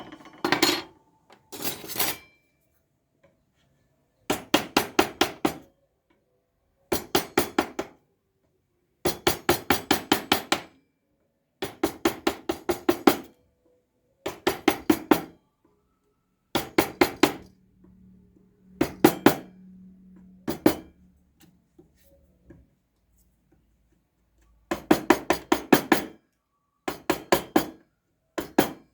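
A mallet driving a carving chisel into wood in quick runs of about six to ten blows, roughly six a second, with pauses between runs. A faint low hum comes in briefly past the middle.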